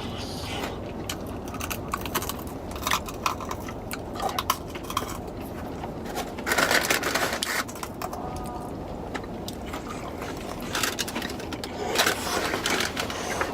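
Scattered clicks and short rustles of food and packaging being handled and eaten, over a steady low rumble in a car's cabin; the longest rustle comes about halfway through.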